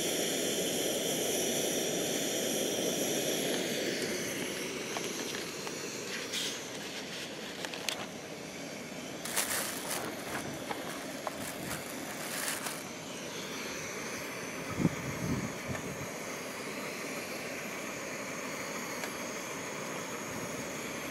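Coleman 533 pressurised liquid-fuel camp stove burner running with a steady rushing roar under a rack of toasting bread. A few sharp clicks and knocks of handling come around the middle.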